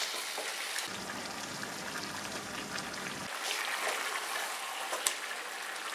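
Marinated mutton sizzling in oil and ghee in a kadai over high flame as it is stirred and sautéd, a steady frying hiss with a light knock about five seconds in.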